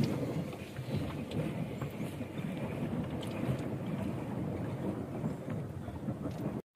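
Steady low rumble and water noise aboard a small boat under way on a lake, with a few faint knocks. The sound cuts out for a moment near the end.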